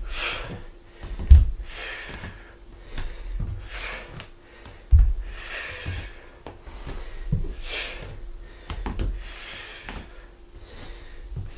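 A man breathing hard in repeated sharp exhalations while exercising, with several dull thuds of bare feet landing on a wooden floor, the loudest about a second in and about five seconds in.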